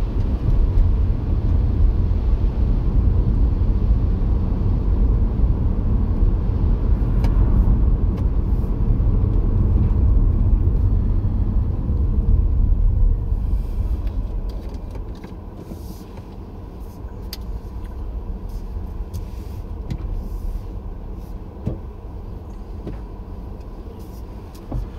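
Car engine and road rumble heard from inside the cabin while driving. It drops away about fourteen seconds in as the car slows and pulls up, leaving a quieter steady engine idle.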